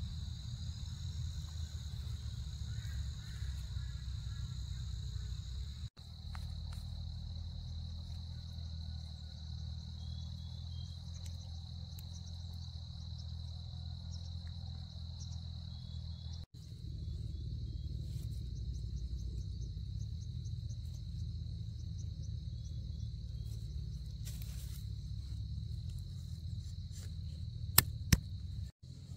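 Insects trilling steadily in a high, even tone over a low steady rumble, with one sharp click near the end.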